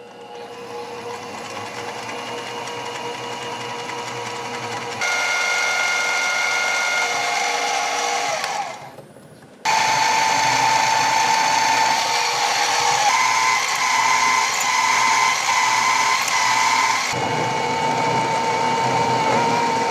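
Mini milling machine spindle running with a steady whine and several high tones as its cutters work into a metal bar. The sound steps up in level about five seconds in, drops out briefly near nine seconds, then resumes louder.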